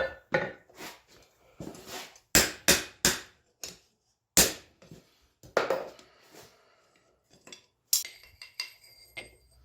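Irregular metal clanks and clinks of a steel bar and tools being handled and set down, a dozen or so knocks spaced unevenly, with one strike near the end that rings on briefly.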